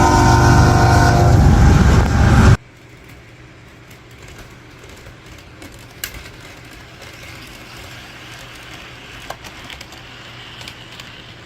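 An HO-scale GE AC4400CW model locomotive's onboard sound system plays a chord-like diesel horn over loud engine rumble through its small speaker. The sound cuts off abruptly about two and a half seconds in. After that there is only a faint low hum with a few light clicks.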